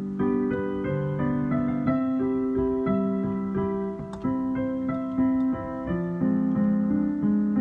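Piano duet playing slow, held chords with a melody on top, the notes changing about every half second to a second.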